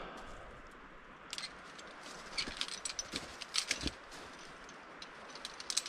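Scattered light clicks and clinks of small hard objects being handled, thickest between about one and a half and four seconds in, over faint background hiss.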